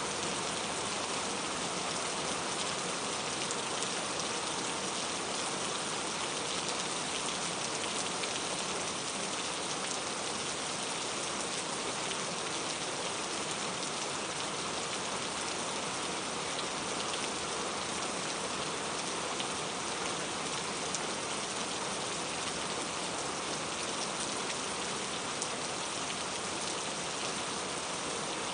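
Steady rain falling, an even hiss of drops on surfaces with scattered individual drop ticks.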